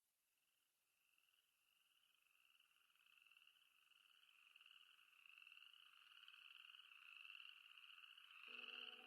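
A chorus of insects trilling in a steady, pulsing high buzz, fading in from silence and growing louder. Low music notes come in near the end.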